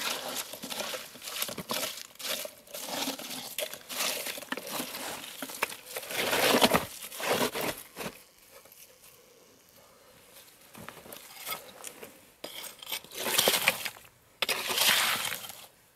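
Rocks and gravelly soil crunching, scraping and clinking as rocks are dug out and set in place for a trail drainage fix. The noises come in irregular bursts, go quieter for a few seconds about halfway, then pick up again.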